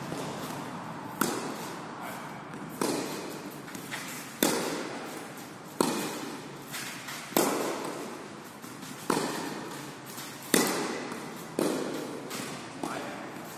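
Tennis balls struck with rackets, a sharp pop about every one and a half seconds, each hit ringing on under the hall's metal roof.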